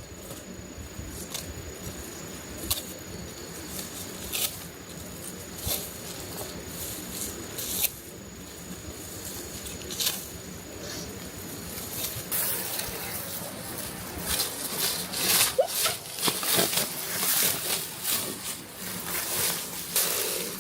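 Irregular rustling and crackling handling noise that grows busier about halfway through, with a thin steady high-pitched tone for the first half that then stops.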